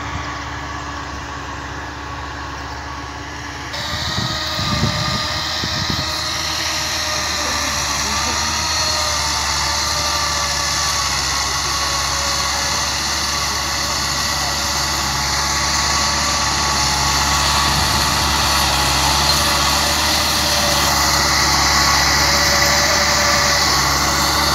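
Massey Ferguson 385 tractor's Perkins four-cylinder diesel engine running under load while driving a rotavator through the soil. A steady drone that steps up about four seconds in and then grows slowly louder.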